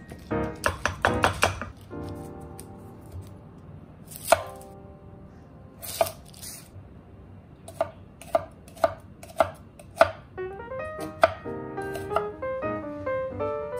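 Chef's knife slicing a red onion and knocking down onto a wooden chopping board in a run of sharp knocks, about two a second near the middle. Light piano music plays underneath.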